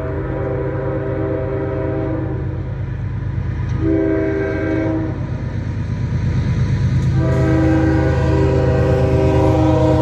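Diesel freight locomotive's multi-chime air horn sounding a chord: a long blast that ends about two seconds in, a short blast, then another long blast that starts near the end. This is the close of the long-long-short-long grade-crossing signal. Under it the locomotive's engine rumbles steadily and grows louder as the train approaches.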